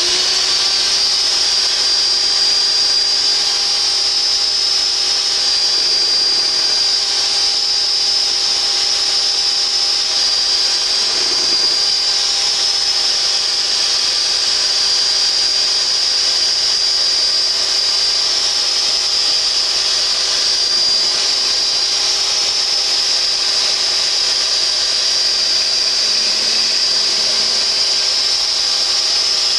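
Electric mixer running steadily at high speed with an even whine, beating egg whites without sugar toward stiff peaks.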